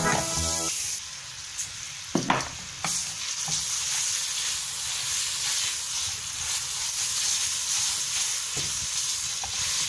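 Butter sizzling and frying in a nonstick pan as a paste is stirred through it with a silicone spatula, a steady sizzle with a couple of sharp knocks about two seconds in. Music cuts off within the first second.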